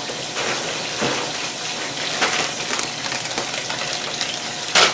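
Chicken wings deep-frying in hot oil: a steady sizzle with scattered pops and crackles, and a sharper click near the end.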